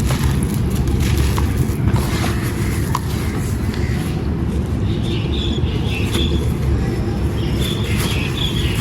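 Wet, gritty sand-cement stones crumbling and crackling in water, over a steady low rumble.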